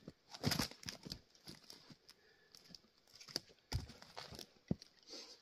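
Tamarack firewood being split and handled with an axe: scattered wooden knocks and clunks, with the heaviest thud a little under four seconds in.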